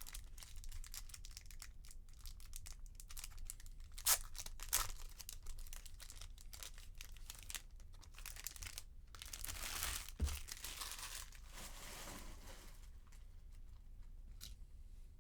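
Foil wrappers of trading card packs being torn open and crinkled, with sharp snaps and rustling as the cards are handled; it goes quieter near the end.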